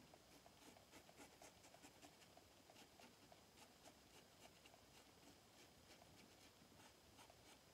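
Faint, scratchy crackle of a Shlyuz Bublos double-edge safety razor cutting lathered stubble on a cross-grain pass, many quick irregular ticks as the blade shears through the whiskers.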